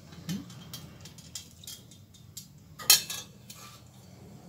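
Metal ladle and steel pot clinking lightly against a steel mixing bowl as melted ghee is poured over shredded kunafa dough: a few soft taps, with one sharper clink about three seconds in.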